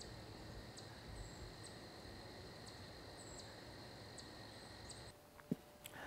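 Faint, steady high-pitched insect trill over quiet woodland ambience, with a few faint high ticks. It cuts off abruptly about five seconds in.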